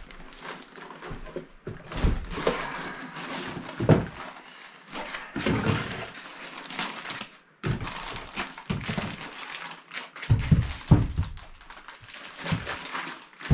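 Hands unpacking a boxed solar charge controller: cardboard and foam packing rustle and scrape as the bagged unit is pulled out, with several dull thunks as it is handled and set down on a wooden floor.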